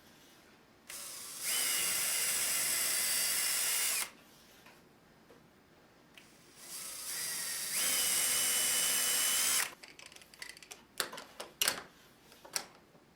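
Power drill boring holes for the latch: two runs of about three seconds each, each starting slower and then going up to full speed. Short clicks and knocks follow near the end.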